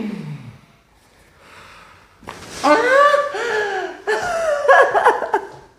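A person laughing in a run of short bursts for about three seconds, after a short vocal sound falling in pitch at the very start.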